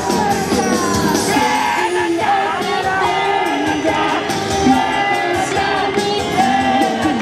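J-pop idol song played as a backing track through a stage speaker, with two girls singing live into handheld microphones.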